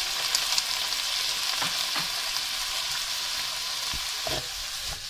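Mixed seafood sizzling in a hot frying pan with browned bacon and spring onion, a steady hiss with fine crackling spits, the wet seafood just added to the hot fat.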